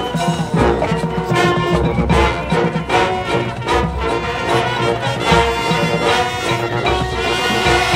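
Marching band playing live: brass section sustaining chords over a drumline beat.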